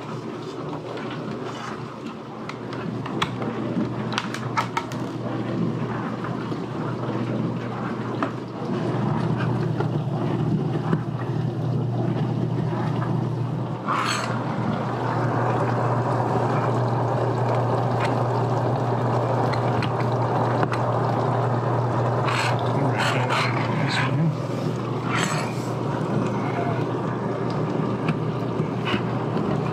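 Frigidaire dishwasher running a cycle: a steady pump hum with water spraying inside, not quiet but not bad, growing louder about nine seconds in. A few sharp clicks and knocks come from the kick plate being fitted at its base.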